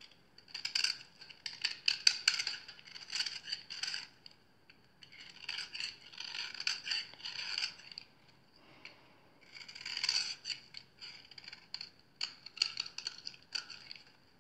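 A blade cutting and scraping through a crumbly bar of soap: dense crunchy, crackling strokes in about four runs of a couple of seconds each, with short pauses between them.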